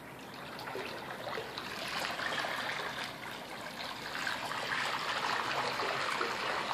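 Pool water churned and splashing in the wash of a fishing torpedo's propeller as it runs across the pool, a steady rushing sound that grows louder over the first two seconds.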